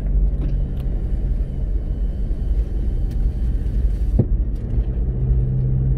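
Car driving, a steady low engine hum and road rumble, with one brief knock about four seconds in.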